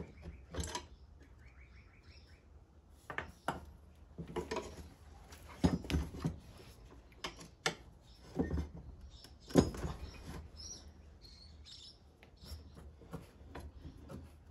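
A steel spanner clinks on the nuts and the metal motor-mount bracket of a Venco pottery wheel's drive assembly as the bracket is unbolted and the motor is shifted, giving irregular metallic knocks and clicks. A bird chirps faintly in the background.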